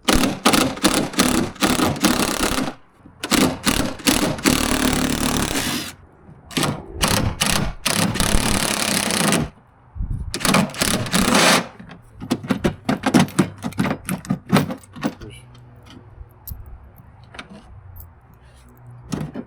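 Cordless impact driver hammering in four bursts of a few seconds each, backing out the stainless bolts that hold a fiberglass boat's nose cap. Near the end come a run of short, quick taps and clicks.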